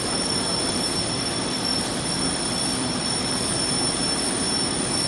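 Aluminium foil printing machine running steadily, its printed foil web feeding over the rollers: an even mechanical whir with a thin, steady high whine over it.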